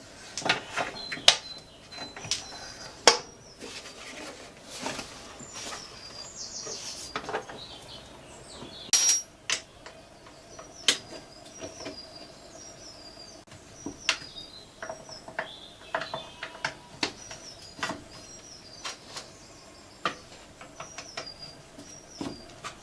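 Scattered metallic clanks and knocks at irregular intervals, with birds chirping in the background.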